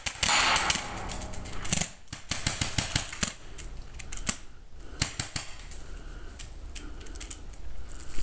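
Paintball markers firing during a game: a loud, dense burst in the first couple of seconds, then scattered sharp pops and short strings of shots.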